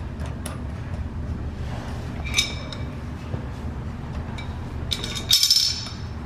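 Metal clinks of a brass hose fitting being turned by hand onto a chrome angle valve: one short clink about two seconds in and a louder cluster of ringing clinks near the end, over a steady low hum.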